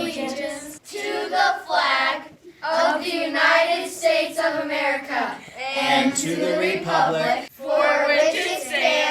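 Children singing together in a series of short sung phrases with brief breaks between them.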